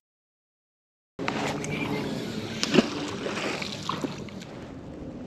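Dead silence for about a second, then outdoor river sound: water moving and wind on the microphone, with a few short knocks, the sharpest about halfway through.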